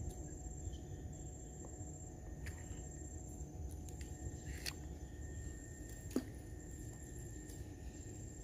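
Steady high-pitched insect drone over a low rumble, with a couple of short clicks around the middle.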